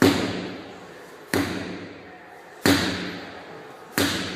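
A sledgehammer striking a heavy tyre four times, about one and a third seconds apart; each hit is a sharp, echoing thud that dies away before the next.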